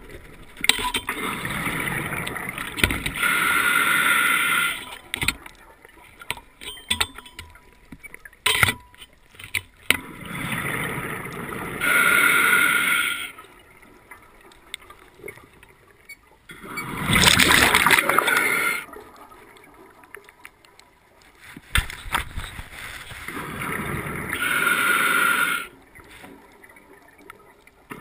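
Scuba diver breathing through a regulator underwater: slow breath cycles, each a hissing inhale followed by a noisy gush of exhaled bubbles, with light clicks in between.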